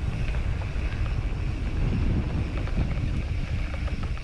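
Wind buffeting an action camera's microphone during a mountain bike ride on a dirt singletrack, a steady low rumble mixed with tyre noise and scattered small clicks and rattles from the bike.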